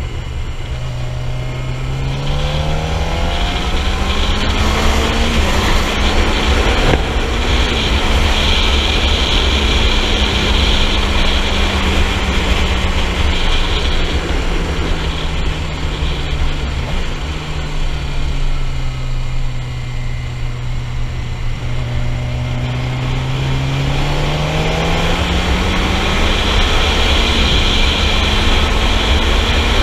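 Sport motorcycle engine under way, heard over heavy wind rumble on the microphone. Its pitch climbs over the first few seconds as the bike speeds up and holds for a while. It sinks slowly around the middle as the throttle eases, then climbs again toward the end.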